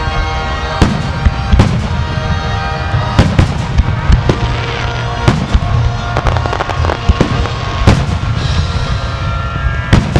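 Aerial fireworks shells bursting, a dozen or so sharp bangs about a second apart, with music playing underneath.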